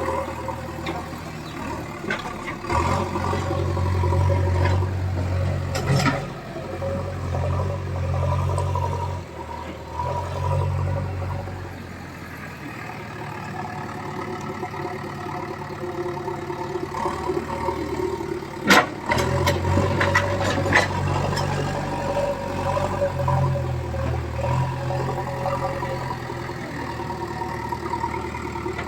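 JCB 3DX backhoe loader's diesel engine running, working up under load and easing back several times. Sharp knocks come through, the loudest about two-thirds of the way in.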